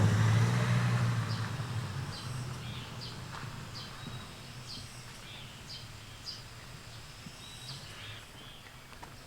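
Birds chirping, short high calls repeating throughout. A low rumble starts suddenly right at the start and fades away over the first three seconds or so.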